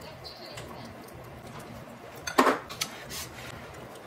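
Utensils clinking against dishes, with one sharp, loud clink about two and a half seconds in and a few lighter clicks after it.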